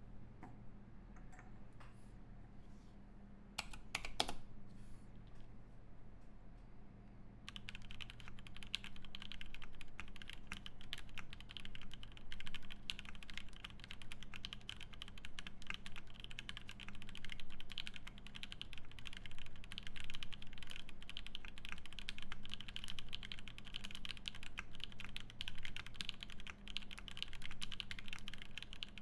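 Matrix 6XV 2.0 Falcon mechanical keyboard with lubed Banana Split linear switches on an aluminium plate, typed on: a couple of sharp clicks about four seconds in, then fast, continuous typing from about a quarter of the way in.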